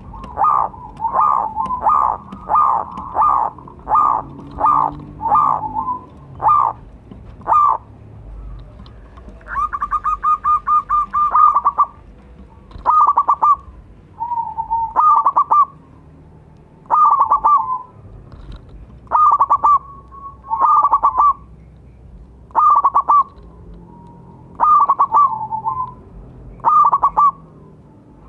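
A zebra dove (perkutut) calling with its cooing song. It starts with a quick run of short notes about two a second for seven seconds, then gives a fast rolling trill, then short cooing phrases repeated every two seconds or so.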